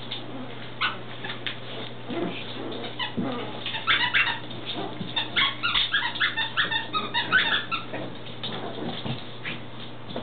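Two puppies playing tug-of-war over a toy. There is a quick run of short, high-pitched yips and squeals in the middle, with scattered light clicks around it.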